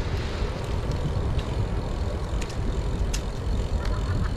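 Outdoor city ambience: a steady low rumble with scattered small clicks.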